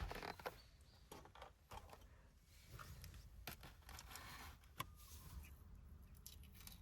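Near silence, with scattered faint clicks and light knocks of small objects being handled.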